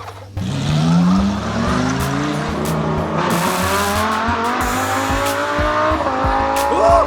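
Car engine accelerating, its pitch rising steadily over several seconds, with background music.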